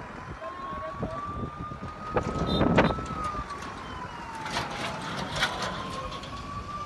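A siren wailing on one tone that slowly rises, falls and rises again in pitch, with a loud rush of noise a little before the middle.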